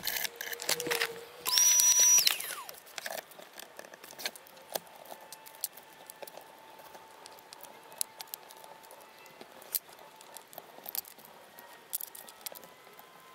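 A cordless drill runs briefly, about a second and a half in, with a steady whine that stops after under a second and falls in pitch as it spins down. Then come scattered light metallic clicks and taps of parts and fasteners being handled on the aluminium frame.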